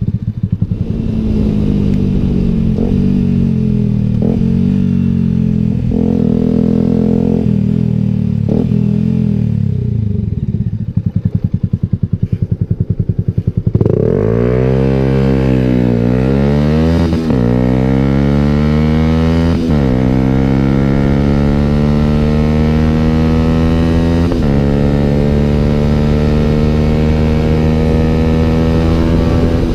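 Yamaha YZF-R125's single-cylinder four-stroke engine through a Danmoto aftermarket exhaust, heard from on board. For about fourteen seconds it runs at low revs, the pitch sagging and stepping back up a few times. Then it accelerates hard, the revs climbing steeply through the gears, with upshifts about three, six and ten seconds into the pull.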